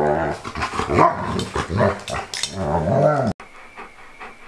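Old English Sheepdog vocalising in a run of drawn-out, pitched moans that rise and fall. About three seconds in it cuts off abruptly, and a dog panting softly follows.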